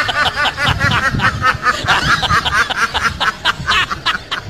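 Ducks quacking in a fast, chattering run of short calls that sounds like laughter.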